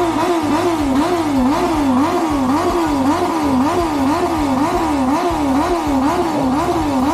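Superbike engine revved over and over on a parked bike, the pitch rising and falling about twice a second in a steady rhythm.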